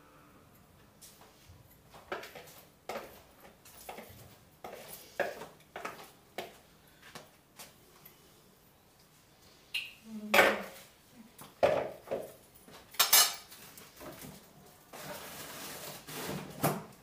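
Metal spoon clinking and scraping against a plate and a serving tray while meatball mixture is scooped and shaped: a run of irregular knocks, the loudest about ten to thirteen seconds in, with a longer scrape near the end.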